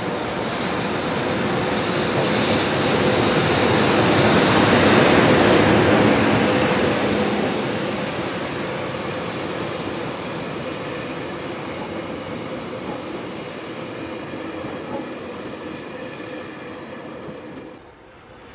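A train hauled by an EH500 electric locomotive and made up of towed E721 series EMU cars passes close by, its wheels running on the rails with a steady hum underneath. The sound builds to its loudest about five seconds in, fades slowly as the cars roll past, and drops suddenly near the end.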